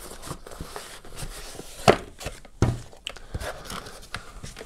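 Handling of cardboard packaging: a headset pouch in a plastic bag is pulled out of a cardboard box, with light rustling and a few sharp knocks and taps, the loudest about two seconds in.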